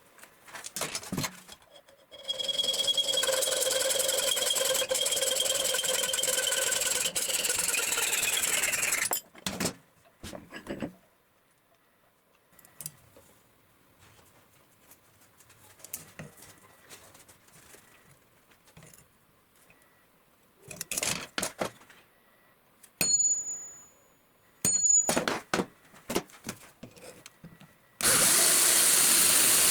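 A power tool motor runs steadily for about seven seconds with a whining tone, then is switched off and winds down, its pitch falling. Scattered clicks and knocks of tools and metal being handled follow, and near the end another loud, hissing run of a power tool starts.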